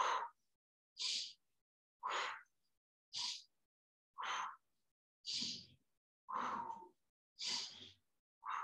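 A woman breathing rhythmically in time with twisting movements: sharp inhales through the nose alternating with breaths blown out through the mouth, a short puff about once a second.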